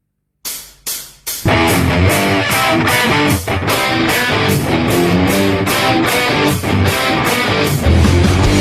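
Rock music intro with electric guitar: three short hits, then the full band comes in about a second and a half in with a steady driving beat.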